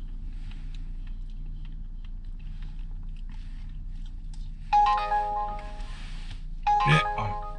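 Two short electronic chime phrases, each a cluster of clear steady tones, the first about two-thirds of the way in and the second about two seconds later, over a steady low hum.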